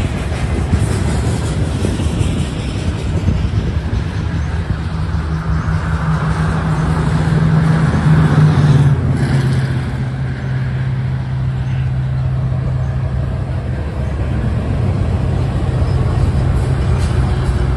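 Freight train of covered hopper cars rolling past with a steady rumble of steel wheels on rail. From about five seconds in, the steady hum of approaching BNSF GE diesel locomotives joins it, peaking around eight seconds and dropping a little in pitch just after.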